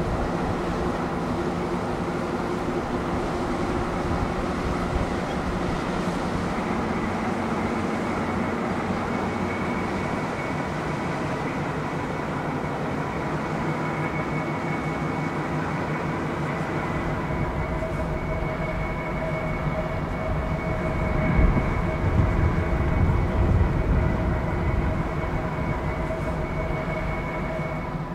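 Steady drone of marine diesel engines from tugboats towing a heavy barge, several constant tones held throughout. A few seconds of louder, uneven low buffeting come in about three-quarters of the way through.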